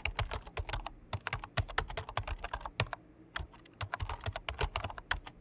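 Typing on a computer keyboard: rapid, irregular key clicks.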